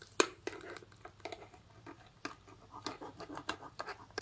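A spoon scraping and stirring blended cucumber and mint pulp in a fine steel mesh strainer, pressing the juice through: a run of irregular scratches and clicks, the sharpest about a quarter second in.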